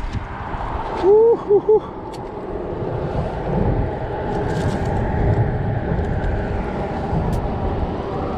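Steady rumble of road traffic crossing a highway bridge. A short three-part pitched call rises and falls about a second in.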